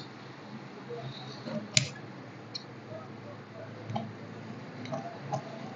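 Large steel tailor's shears snipping the edge of a folded fabric pocket piece: a handful of short, sharp clicks of the blades, the loudest about two seconds in.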